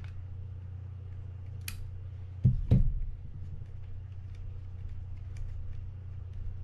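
A sharp metal click, then two dull knocks about two and a half seconds in as a steel adjustable wrench is put down on the work bench, followed by faint ticks of small reel parts being handled by hand. A steady low hum sits underneath.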